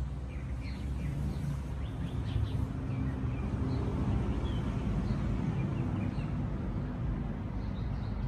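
Road traffic going by as a low, steady noise, with small birds chirping over it now and then.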